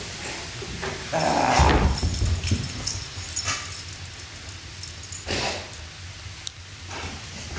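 Great Pyrenees dog vocalising in play, loudest about a second in, with a sharp knock about five seconds in.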